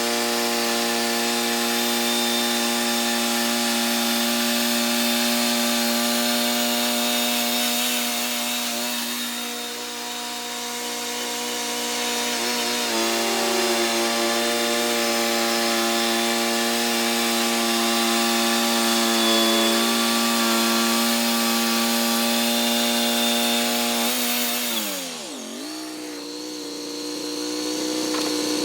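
Wood-Mizer LT40 band sawmill running under load, its engine holding a steady hum under the hiss of the band blade cutting through a log. Near the end the engine pitch drops sharply, then climbs back.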